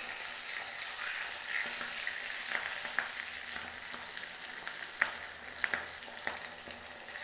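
Stuffed puri deep-frying in hot oil in a kadhai, a steady sizzle. A few sharp clicks come from the metal slotted spoon touching the pan as it turns the puri, about three, five and six seconds in.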